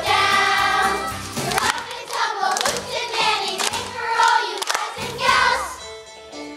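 Children's choir singing over a backing track, with sharp claps scattered through it. Near the end the singing stops and quieter backing music continues.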